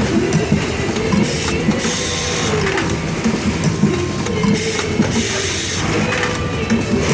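Hanger-making machine running, a steady, repeating mechanical clatter of its working cycle.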